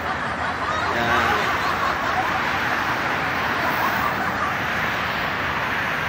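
Steady rush of car traffic on a multi-lane city road, engines and tyres passing.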